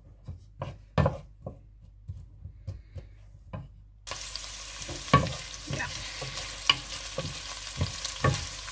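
A wooden spoon stirs diced onions in olive oil in a nonstick pan, knocking and scraping against it now and then. About four seconds in, a steady sizzle of the onions frying cuts in suddenly and continues under the stirring.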